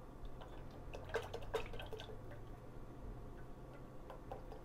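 Cooking oil poured in a thin stream from a plastic jug into a saucepan already holding oil: a soft liquid trickle with a cluster of small drip-like plops and ticks about a second in, and a few more near the end.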